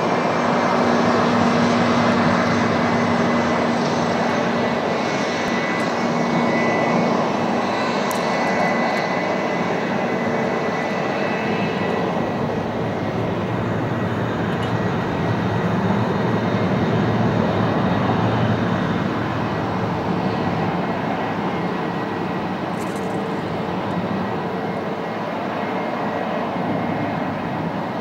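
Jet engines of a Boeing 727-100 running steadily on the ground: a continuous loud jet noise with a steady whine in it and a low hum that fades about halfway through.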